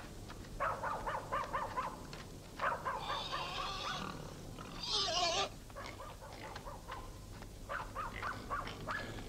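Animals calling in rapid runs of short, repeated notes, with a louder, harsher squeal about five seconds in.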